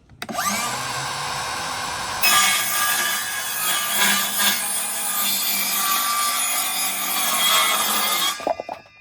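Electric power saw cutting scrap plywood to size. The motor spins up, the blade goes into the wood about two seconds in and cuts steadily for about six seconds, then the motor winds down near the end.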